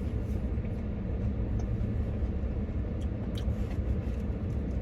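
Steady low rumble like a vehicle engine running, with a couple of faint clicks a little past the middle.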